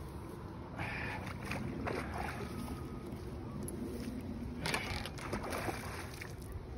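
A hooked carp splashing and thrashing at the water's surface close to the bank, with wind rumbling on the microphone. A few sudden splashes stand out, the loudest a little under five seconds in.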